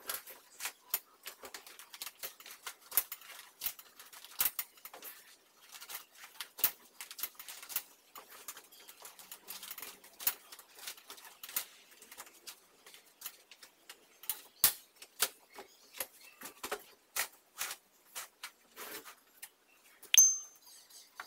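Metal eyelet rings of curtains clicking and clinking against a metal curtain rod as the curtains are slid and drawn along it, with many irregular sharp clicks and one louder ringing clink near the end.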